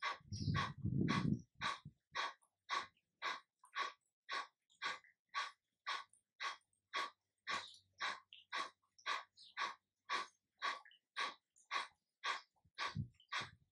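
Kapalabhati breathing: short, forceful exhalations snorted out through the nose in a steady rhythm of about two a second, the first few in the opening second and a half louder and fuller.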